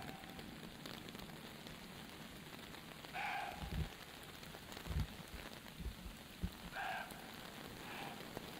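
Steady rain pattering on the tent's fabric, with two short faint sounds about three and seven seconds in and a few soft low thumps between them.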